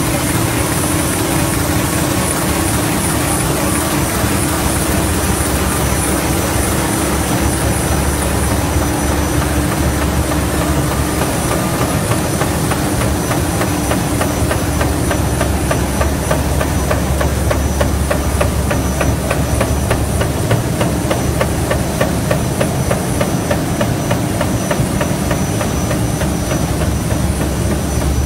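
T-type baby diaper making machine running: a steady, loud mechanical din of rollers, gearboxes and belts, with a constant hum and a fast, even clatter that comes through more clearly in the second half.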